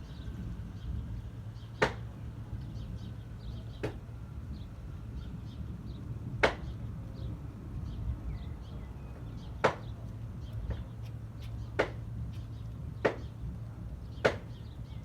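Seven sharp clicks at irregular intervals, a second or three apart, the loudest about six seconds in, over a steady low hum, with faint bird chirps.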